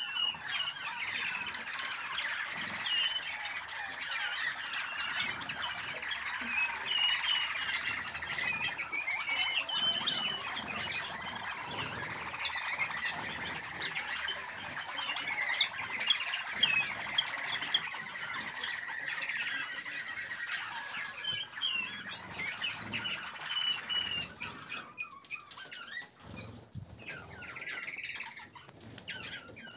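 A flock of Malinois (Waterslager) song canaries calling and singing all at once, a dense chorus of chirps and warbled trills. It thins out and grows quieter near the end.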